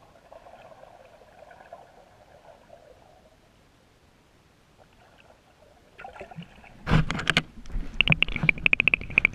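A faint hum underwater at first. From about seven seconds in come loud knocking and rattling against the underwater camera as it is moved.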